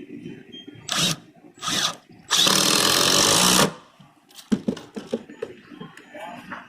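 Cordless drill test-run in short trigger pulls: two brief blips, then a loud run of about a second and a half that stops sharply, followed by clicks and clatter of the tool being handled.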